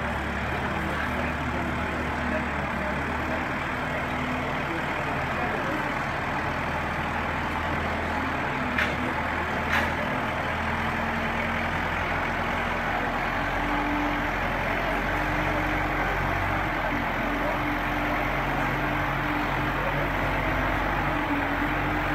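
Kubota farm tractor's diesel engine running at low speed, its pitch shifting partway through as the tractor manoeuvres. Two short clicks about nine and ten seconds in.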